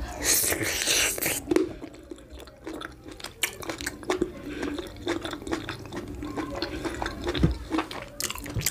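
Close-miked wet eating sounds: a mouthful of amala with slimy ewedu and gbegiri soup being chewed and swallowed, with many small sticky clicks and squelches. A louder rushing wet noise fills about the first second.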